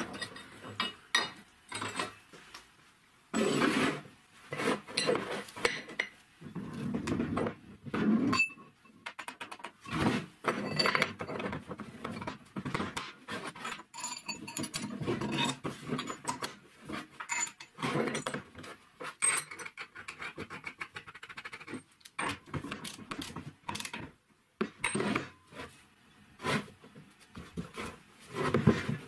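Steel parts being handled and fitted together on a wooden workbench: a rod, washers, nuts and a bearing-fitted tube clink and knock against each other and the bench in irregular clusters.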